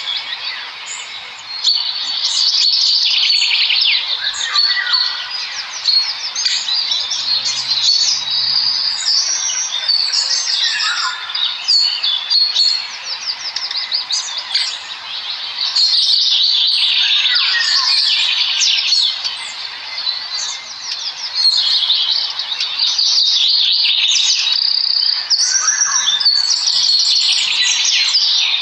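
A flock of small birds chirping and chittering together, many overlapping short high calls and trills with no pause.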